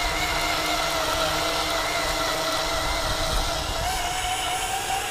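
Makita cordless drill running steadily, spinning a plastic line spool bolted in its chuck to wind monofilament fishing line off a reel. The motor whine holds a steady pitch that wavers slightly and rises a little near the end.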